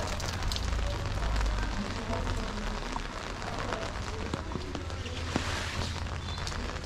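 Steady rain falling on street surfaces, with many small drop ticks spattering through it over a low steady rumble.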